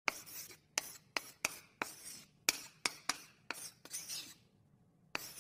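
Chalk writing on a blackboard: about a dozen sharp taps, each followed by a short scratchy stroke, in an irregular rhythm with a brief pause near the end.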